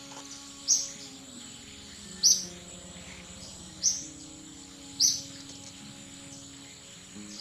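A bird's short, high chirp, repeated about every second and a half, four times, over soft background music with long held low notes.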